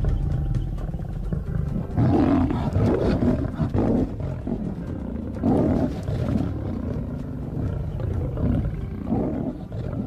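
African lions snarling and growling in a fight, with a low rumbling growl throughout and loud rough outbursts about two seconds in, around the middle and near the end.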